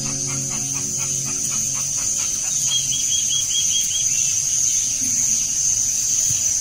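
Birds calling in a wetland: a rapid, evenly repeated call for the first two and a half seconds, then a quick run of about seven short high notes around three seconds in, over a steady high-pitched drone.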